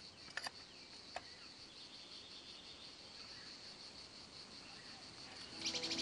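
Faint natural ambience: a steady high-pitched insect drone, with a couple of small clicks in the first second or so. Bird chirps and music start just before the end.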